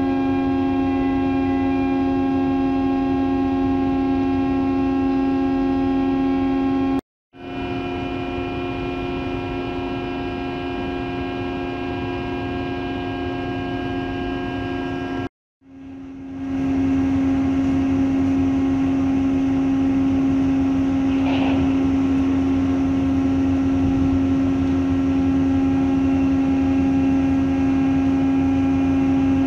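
Steady hum of a container ship's machinery heard from its own deck: a constant drone of several fixed pitches over a low rumble. It cuts out briefly twice, about 7 and 15 seconds in.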